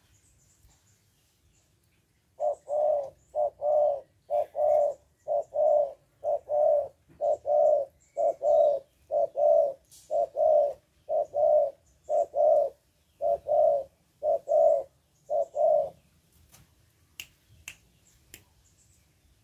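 Spotted dove cooing close by: a run of low, two-note coos, about one pair a second, for some thirteen seconds. A few sharp finger snaps follow near the end.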